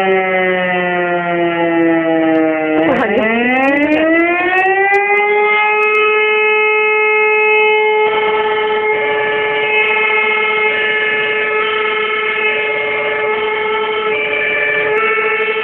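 Fire station alarm siren sounding: its wail slowly falls, dips about three seconds in, then climbs back and holds a steady tone. From about halfway a fire engine's engine runs beneath it as the truck pulls out.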